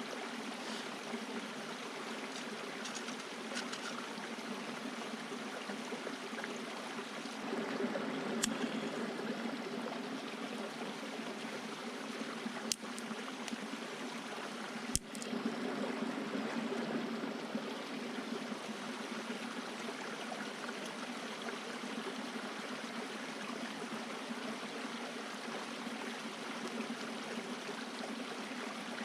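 A stream flowing steadily, a continuous rushing of water, with a few sharp clicks or snaps about 8, 13 and 15 seconds in.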